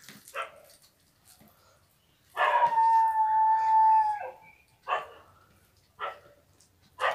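A dog giving one long, steady whine of about two seconds, then a few short barks.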